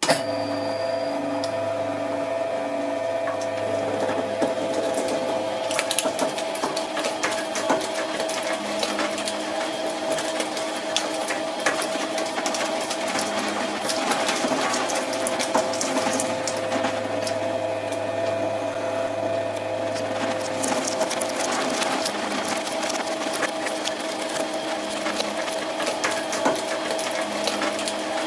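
Twin-shaft shredder running with a steady motor hum and whine while its cutter discs grind and tear through a rubber band ball, with dense, irregular clicking and crackling throughout. It starts abruptly at the outset, and the clicking grows busier after a few seconds.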